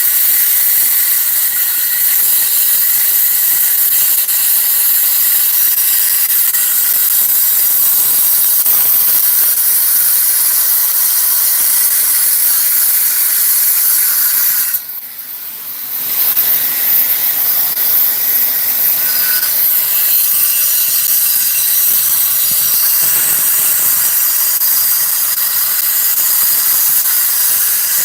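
A 7-inch angle grinder cutting sandstone: a steady, high, hissing grind of the abrasive wheel in the stone. It drops away for about a second halfway through, then picks up again.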